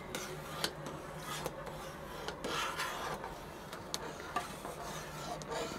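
Metal spoon stirring and scraping a steel pot of thickening milk-and-ground-rice firni, with a few light clicks of the spoon against the pot. The stirring is kept up so the rice does not form lumps.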